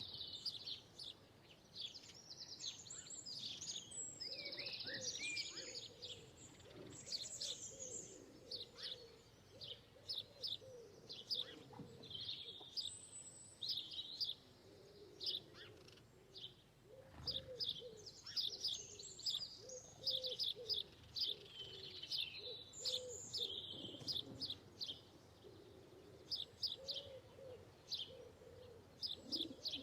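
A flock of birds calling: many short high chirps and twitters over a low, softly repeated cooing or clucking call.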